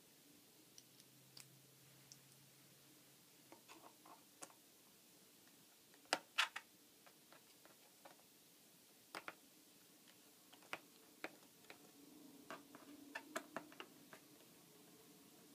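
Scattered small clicks and taps from hands working on a MacBook Pro during a RAM upgrade, against a quiet room. The loudest is a sharp double click about six seconds in, and a quicker run of clicks comes near the end.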